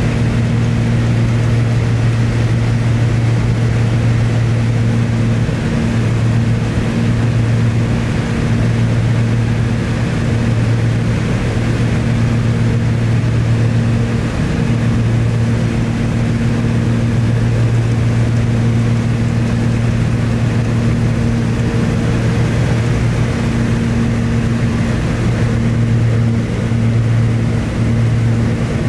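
Cessna 320's two turbocharged six-cylinder piston engines and propellers running in flight, heard inside the cockpit as a steady deep drone with airflow hiss. The drone wavers in strength now and then.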